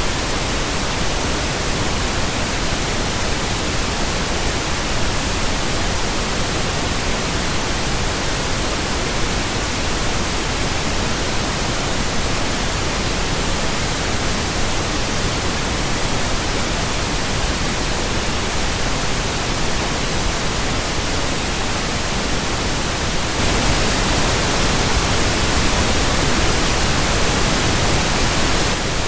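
Steady pink noise, an even hiss without tones or rhythm. About five seconds before the end it turns slightly louder and brighter, then drops back.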